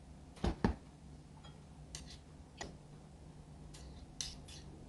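A spoon knocks twice against a small bowl as gochujang paste is spooned in. A few soft, short scrapes of the spoon follow.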